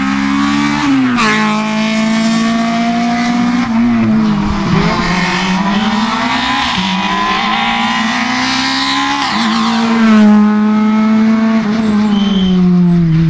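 Rally car engine revving hard under full load. Its pitch climbs, then drops sharply with each gear change or lift, several times over.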